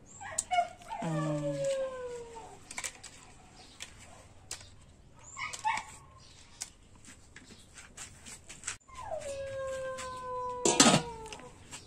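An animal's drawn-out whining howls: a short falling cry about a second in and a longer one in the last three seconds that drops at first and then holds, slowly sinking. A sharp knock sounds near the end, the loudest moment.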